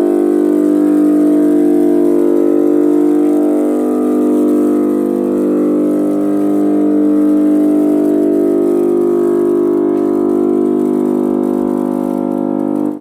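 Heavy, steady electrical hum of a 315 MVA interconnecting power transformer, freshly energized. It is a stack of even tones, strongest around 300 Hz, and it cuts off abruptly at the end.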